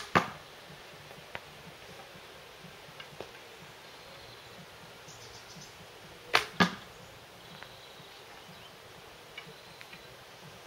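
Two shots from a hand-made hickory, purpleheart and lemonwood longbow, about six seconds apart, the bow strung on a temporary tillering string. Each shot is a sharp crack as the string is loosed, followed a fifth of a second later by a second knock.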